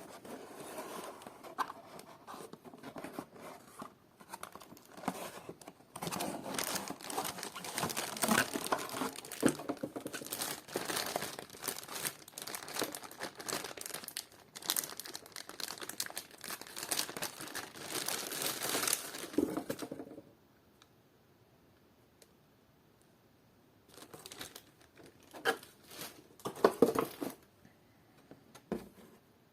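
Packaging crinkling and tearing as it is handled and pulled open: lighter rustling at first, then dense continuous crackling for about fourteen seconds that stops suddenly, followed a few seconds later by a handful of scattered rustles and knocks.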